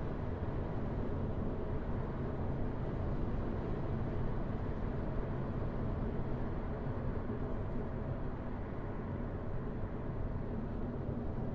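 Car driving at steady road speed: an even low rumble of tyre and engine noise with no sudden events.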